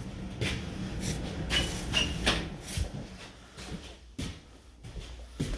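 Footsteps and handling noises on a newly installed hardwood floor: scattered light knocks and rubs, with two brief high squeaks around two seconds in.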